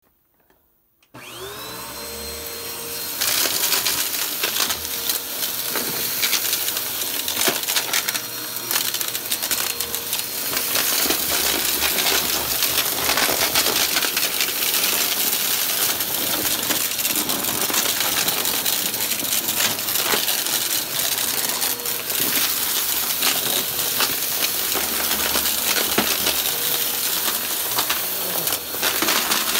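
An upright bagless vacuum cleaner switches on about a second in, its motor whine rising as it spins up. It then runs steadily while the brushroll goes over carpet and sucks up crunchy debris, which makes a constant rattle of clicks and crackles.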